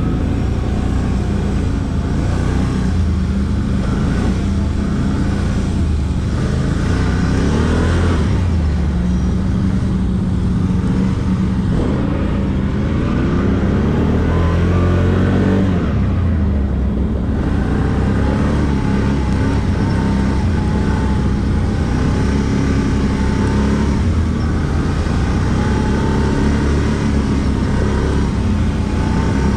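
ATV engine running under way, its revs rising and falling with the throttle. It climbs strongly about halfway through, then eases off briefly before settling back to a steady run.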